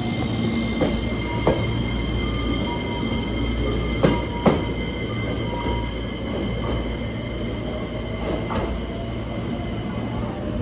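Hankyu Kyoto Line electric train running, with a steady rumble, a steady high whine, and several sharp clunks.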